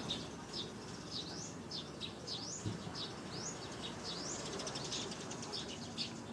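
A bird calling over and over in short, high chirps that sweep up and down in pitch, about two a second, over a steady outdoor hiss. A single soft knock comes about halfway through.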